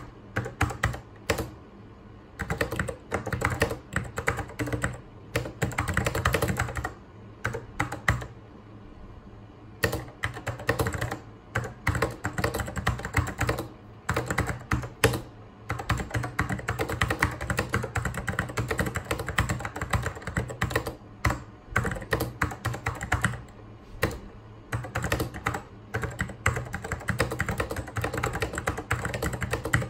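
Continuous fast typing on a mechanical Apple keyboard: dense runs of clacking keystrokes, with a pause of about two seconds a third of the way in. A steady low hum runs underneath.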